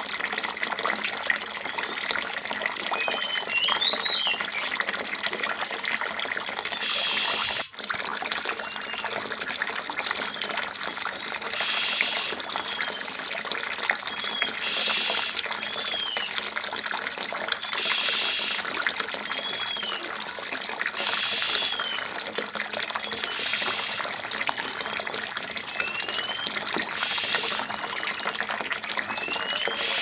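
Steady running water trickling into a shallow pool, with short whistled chirps, each rising or falling, every few seconds and brief hissy bursts about every three seconds.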